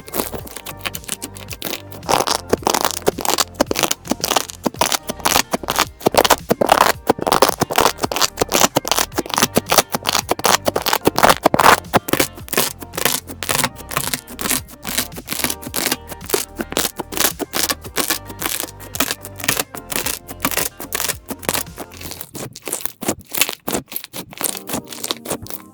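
Slime being squeezed and pressed, giving off rapid crackling and popping clicks, over background music.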